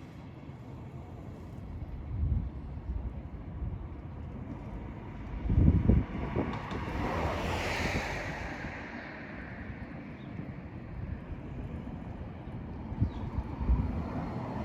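Outdoor ambience with wind rumbling on the microphone and a passing vehicle that swells and fades about halfway through.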